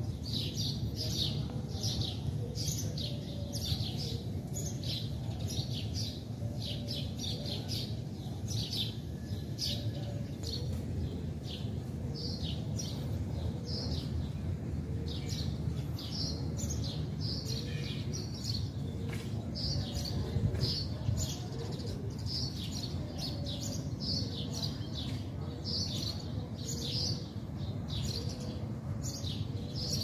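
Small birds chirping over and over, about two short chirps a second, over a steady low rumble.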